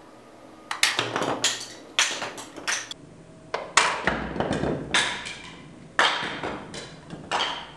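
A string of irregular sharp taps and knocks of hard objects, each with a short ringing tail, starting about a second in.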